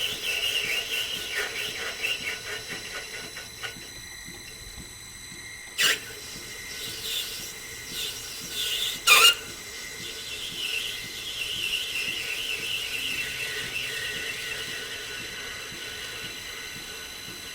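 Lathe cutting with a ball-turning attachment: the tool scrapes with a high, wavering squeal over a steady machine whine, broken by two sharp knocks about six and nine seconds in.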